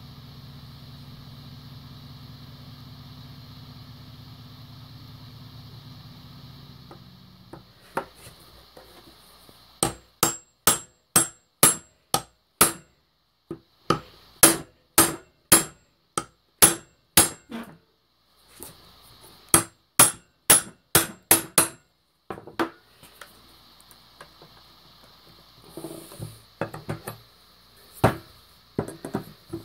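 Claw hammer striking the end of a steel flat bar in quick runs of sharp metallic blows, about three a second, driving the bar's chiseled edge into the wood around a nail head to dig it out. A steady hum is heard at first and stops about seven seconds in.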